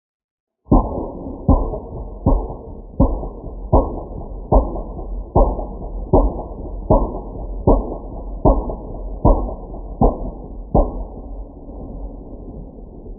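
Distant artillery shelling: a steady barrage of about fourteen dull explosions, a little more than one a second, starting suddenly after silence, with a low rumble between the blasts that trails off after the last one near the end.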